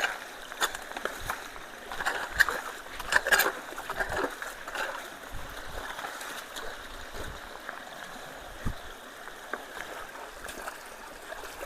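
Creek water flowing steadily through road culverts, with scattered short clicks and knocks over it, most of them in the first few seconds.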